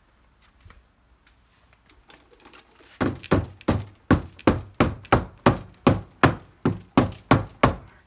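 Plastic dust cup of a Shark upright vacuum being knocked hard against the rim of a plastic wheelie bin to shake the dirt out: a quick, even run of about fourteen sharp knocks, roughly three a second, starting about three seconds in.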